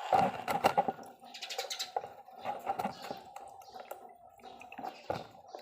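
Light clicks and clinks of metal engine parts being handled and fitted by hand, a quick cluster of them in the first second and scattered ones after, over a steady faint hum.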